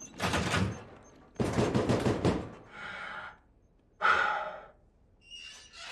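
A quick string of about five short, noisy sound-effect bursts, each under a second long, with brief gaps between them.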